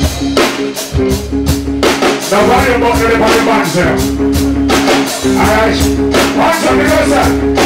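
Live reggae band music with a steady beat, held bass and keyboard tones, and a voice singing over it.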